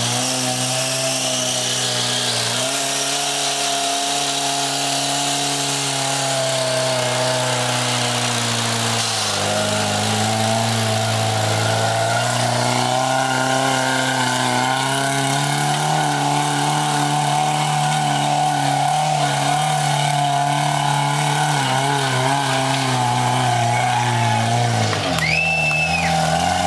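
The 1988 Toyota pickup's engine is pulling hard under load as the truck crawls up a steep dirt climb. Its pitch rises and falls several times with the throttle. A short, high squeal is heard near the end.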